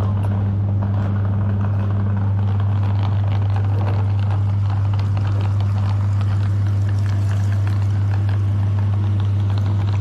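Electric meat grinder running with a loud, steady hum, faint crackling over it.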